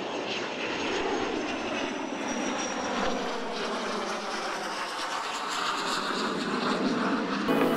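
Steady engine drone mixed with a rushing noise, growing louder over the first second or so. Music cuts in at the very end.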